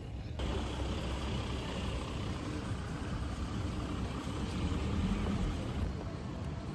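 A motor vehicle's engine running, a steady low rumble with street noise around it; the sound changes abruptly about half a second in.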